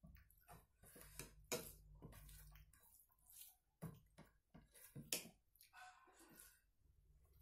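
Faint wet squelches of fingers mixing cooked rice and mutton curry on a plastic plate, with several sharper clicks of fingertips against the plate, over a low steady hum.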